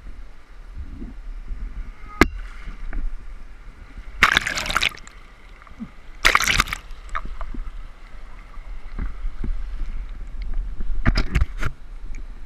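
Fast river water splashing over and against a small craft held on a highline, in three loud bursts, the last a quick cluster of splashes. Under it runs a steady rumble of wind and current on the microphone, with one sharp knock about two seconds in.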